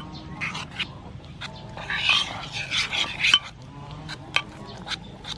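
Metal spoon stirring and mashing a wet flour-and-egg batter in an earthenware pot: wet squelching and scraping, loudest in the middle, with sharp clicks of the spoon against the pot.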